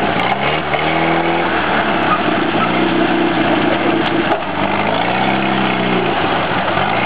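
Small tractor's engine running under load, its pitch rising and falling three times as the driver revs it while steering through the course.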